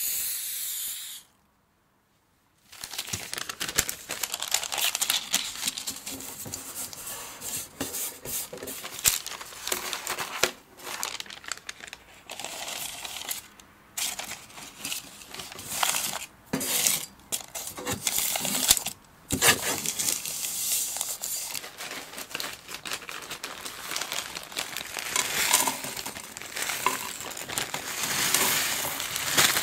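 A brief hiss from an aerosol spray can sprayed into a round metal cake tin. Then a long stretch of baking paper crinkling and rustling as it is fitted into the tin, with small knocks against the metal. Near the end comes the rattle and rustle of crushed biscuit crumbs poured from a plastic bag into the tin.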